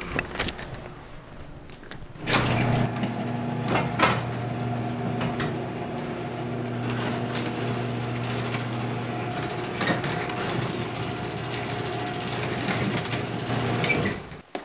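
Garage door opener motor running as the garage door rises, a steady hum with knocks and rattles from the door. It starts with a clunk about two seconds in and stops just before the end. A doorknob and latch click at the start.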